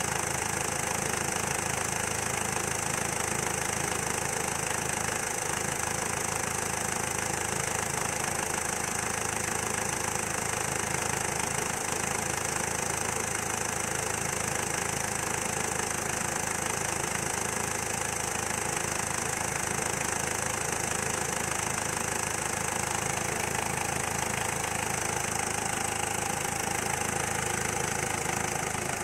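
Peugeot Partner's 1.6 HDi four-cylinder turbodiesel idling steadily, heard close up with the bonnet open.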